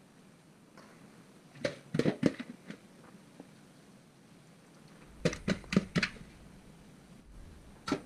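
A serving spoon knocking and scraping against a cooking pot while rice is spooned in layers: two short clusters of knocks, one about two seconds in and another about five to six seconds in, and a single knock near the end, with quiet room tone between.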